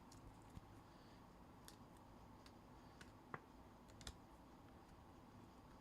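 Near silence with a few faint, scattered clicks and taps: trading cards and plastic card holders being handled.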